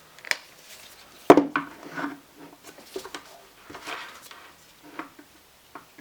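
Multimeter probes and stator wires being handled on a workbench: a scatter of small clicks and light knocks, one sharper knock about a second in.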